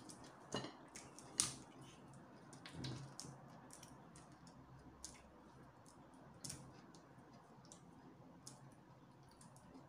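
Faint, scattered clicks and crackles of fingers picking and twisting at the stiff cap of a small plastic bottle that will not open, with a few sharper clicks about half a second, a second and a half and six and a half seconds in.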